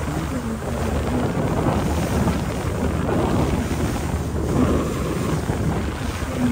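River cruise boat's engine droning steadily, with wind buffeting the microphone.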